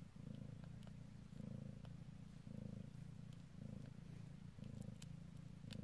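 Mother cat purring softly, swelling and easing with each breath, as she lies with her newborn litter just after giving birth.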